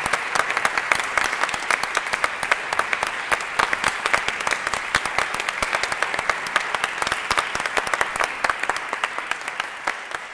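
Audience applauding, many hands clapping at once; the applause begins to fade near the end.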